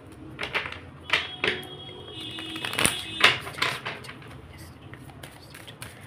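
A deck of tarot cards being shuffled by hand: a quick run of sharp card slaps and flicks, loudest in the middle of the stretch and then dying down.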